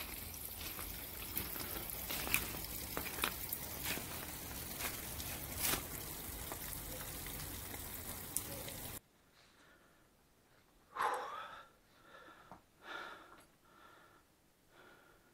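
Steady rushing outdoor noise with many scattered crackles, like footsteps on dry leaves, cut off suddenly about nine seconds in. A much quieter, enclosed cave follows, with a few short breaths spaced a second or so apart.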